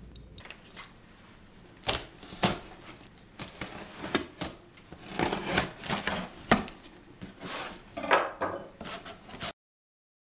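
Cardboard box being handled, with irregular knocks and scrapes, and a knife slitting its packing tape. The sound cuts off suddenly near the end.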